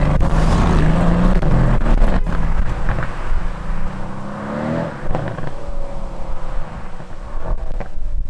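Mercedes-AMG C63 S twin-turbo V8 running through its flap exhaust under way. The engine note rises about halfway through, then drops sharply, and there are a few sharp exhaust crackles.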